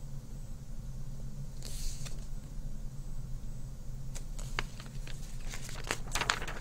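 A picture book being handled and held up: a soft paper rustle about two seconds in, then a run of short clicks and rustles near the end as the book is moved, over a steady low hum.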